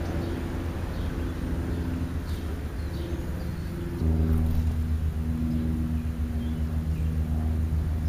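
A car engine running at low, steady revs on the street close by: a low, even-pitched hum that gets louder about halfway through as the car draws nearer. A few faint bird chirps sound above it.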